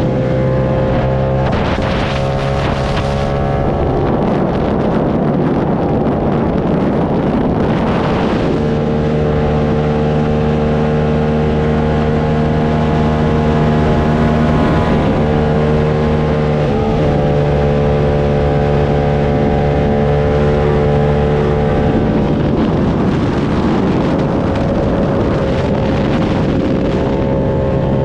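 Motorcycle engine running under way. Its note holds at steady pitches and shifts to new ones several times as the throttle changes, with wind rushing over the microphone in a couple of spots.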